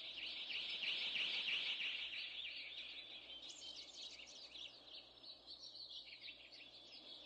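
Many small birds chirping together in a dense, overlapping chorus, slowly fading out.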